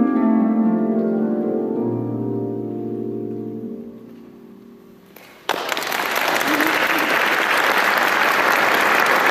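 Concert pedal harp's closing chord ringing and slowly dying away over about five seconds, then audience applause breaking out suddenly and continuing steadily.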